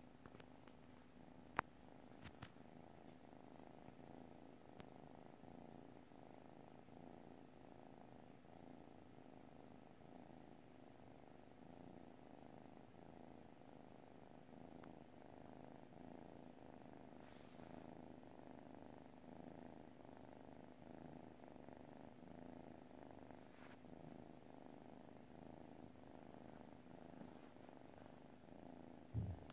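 Sleeping kitten purring faintly and steadily, an even pulsing rumble. A single sharp click about a second and a half in, and a short soft thump near the end.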